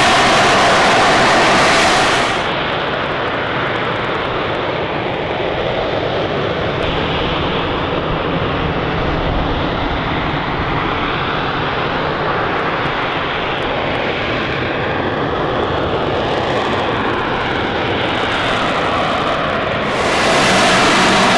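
AV-8B Harrier II jump jet's Pegasus turbofan running at high power while the jet hovers and flies slowly: a loud, steady jet roar. It turns duller about two seconds in and brighter again near the end.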